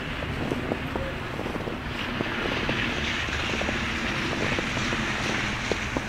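Footsteps crunching in fresh snow over a steady outdoor rumble that swells about two seconds in.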